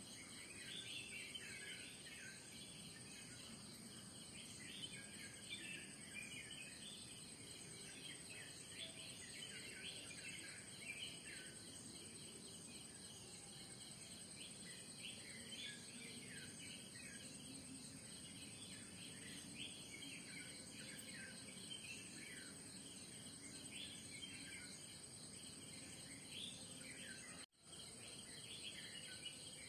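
Faint morning chorus of many small birds chirping over a steady, high-pitched insect drone of crickets. About 27 seconds in the sound cuts out completely for a split second.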